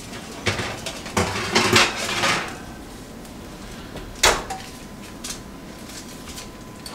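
A foil-lined baking tray scrapes and clatters as it is slid out of an electric oven, then the oven door shuts with one sharp bang about four seconds in. A light click follows as the tray is set down on the glass cooktop.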